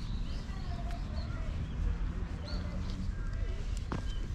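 Faint bird chirps and a few soft calls over a steady low rumble.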